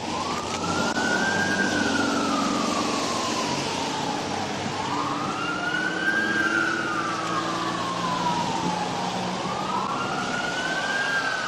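Police sirens wailing, two slightly out of step, each rising and falling slowly about every four to five seconds, over a low steady engine hum.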